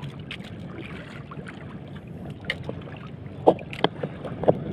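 Steady wind and water around a small outrigger fishing boat, with a few sharp clicks and taps in the second half as a small fish and its lure are handled.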